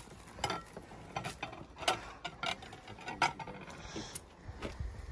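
Tableware being handled on a table: plates being picked up and stacked, with irregular light clicks and knocks, two sharper ones about two and three seconds in.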